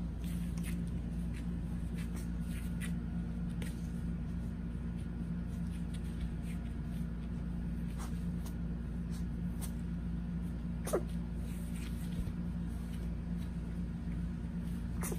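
Puppies play-fighting: scattered small scuffs and clicks of paws and claws on a foam mat, with a brief high puppy yip about two-thirds of the way through.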